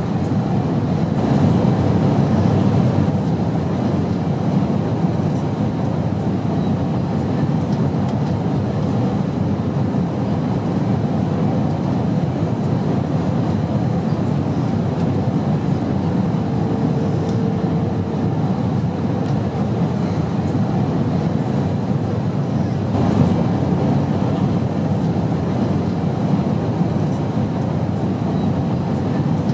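Steady rumbling airliner cabin noise, a constant engine and airflow drone heavy in the low end, with slight swells now and then.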